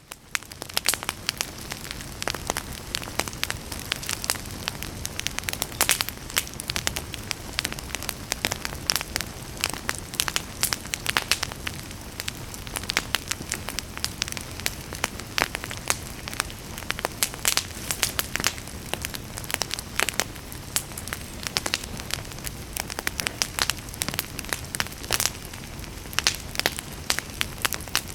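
Campfire burning, with frequent irregular sharp crackles and pops over a steady hiss.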